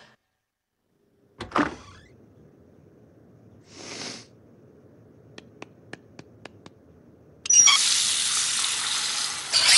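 Cartoon sound effects of a bathroom sink tap being turned on: water runs steadily from the faucet from about three-quarters of the way in, the loudest sound here. Before it come a sharp click, a short hiss and a quick run of six small ticks.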